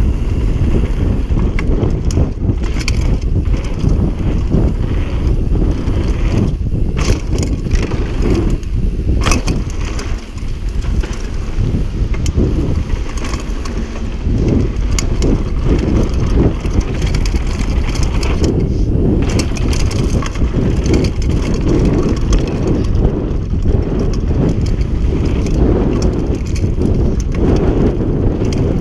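Mountain bike running fast down a dirt trail: heavy wind buffeting on the bike-mounted camera's microphone, with tyres crunching over the dirt and frequent clattering knocks from the bike over bumps.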